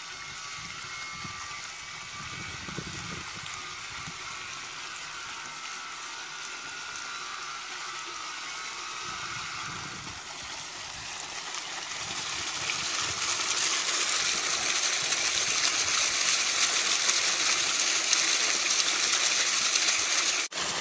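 Water gushing from the open end of a short pipe off an irrigation hydrant and splashing into an earthen trench, a steady rushing that grows louder about halfway through.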